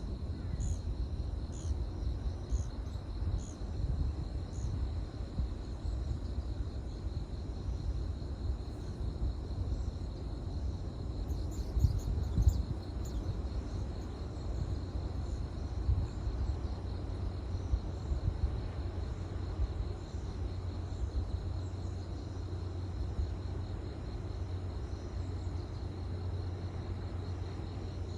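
Outdoor ambience of steadily trilling insects over a low, uneven rumble. A few short high chirps, about two a second, sound in the first few seconds.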